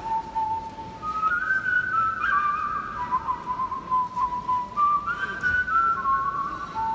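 A person whistling a slow solo tune: long held notes that step up and back down, with a slight waver on the lower held notes.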